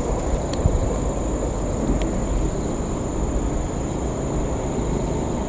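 Tobu 50070 series electric train running on as it leaves the river bridge: a steady low rumble, with a couple of sharp clicks.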